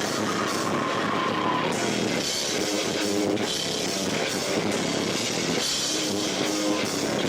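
Live rock band with guitar and drum kit playing at full volume, heard as a distorted, boomy recording overloaded by echo off the room's walls.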